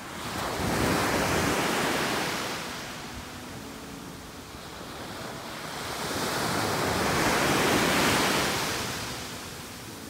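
Small sea waves breaking and washing up onto a beach, the surf swelling twice, about five seconds apart.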